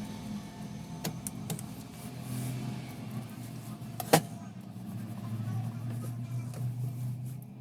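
Laser printer's motor and gear train running with a steady low hum, broken by a few light clicks and one sharp click about four seconds in.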